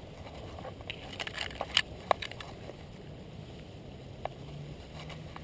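Scattered light clicks and rustles as a dog-mounted action camera brushes through garden plants, over a faint background hum.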